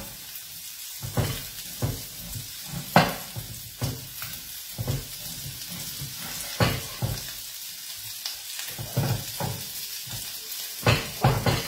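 Diced guanciale sizzling gently in a frying pan over low heat, its fat slowly rendering. Over the sizzle, a knife knocks irregularly on a wooden cutting board as more guanciale is cut, with a quicker run of chops near the end.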